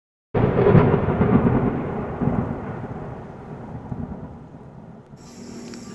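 Intro sound effect: a thunder-like rumble that starts suddenly and fades away over about five seconds.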